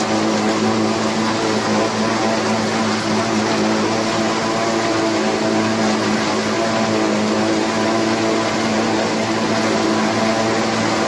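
Hürlimann H-488-T tractor engine and the Mengele 290 forage harvester it drives, running steadily while cutting and chopping standing maize for silage: a constant low engine hum under a steady rushing noise.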